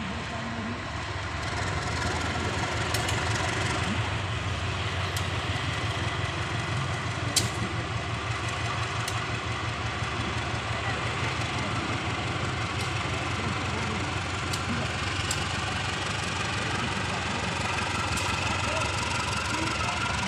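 CC 201 diesel-electric locomotive's diesel engine idling with a steady low throb. A few sharp clicks stand out, the loudest about seven seconds in.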